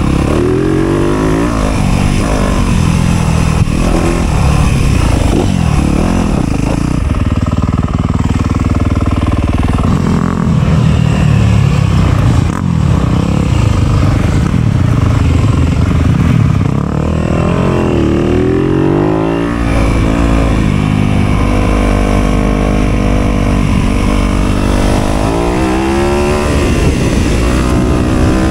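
Dirt bike engine being ridden hard, its pitch rising and falling over and over as the throttle is opened and closed and the gears change.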